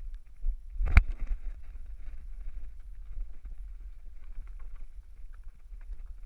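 A person climbing a wooden plank wall obstacle by a strap, heard close up on a body-worn camera: one sharp thump about a second in, then irregular scraping, knocking and rustling of clothing and gear against the boards, over a low wind rumble on the microphone.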